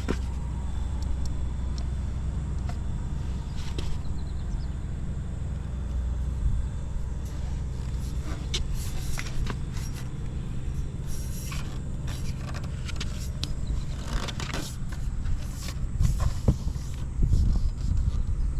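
Buell XB12SS Lightning's air-cooled V-twin idling steadily, with scattered clicks and scrapes over it and a few louder uneven surges near the end. The seller describes the engine as running well with no abnormal noises.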